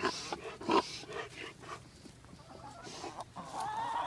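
Chickens clucking in short calls, with one longer wavering call near the end.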